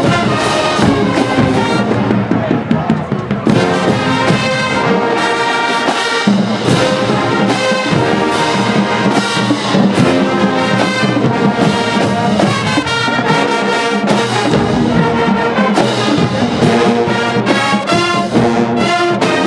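A large marching band playing a brass-heavy tune, trombones and trumpets carrying the melody over a steady beat; it eases back briefly a couple of seconds in, then returns to full volume.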